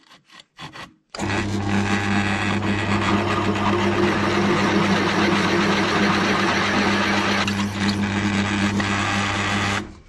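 Drill press running as a large twist drill bores into a metal hex nut clamped in a vise: a steady motor hum under a rough cutting noise. It starts about a second in, after a few light clicks, and cuts off just before the end.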